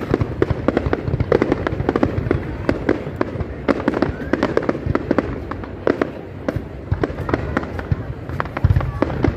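Fireworks going off in quick succession: a dense run of sharp bangs and crackles from bursting aerial shells.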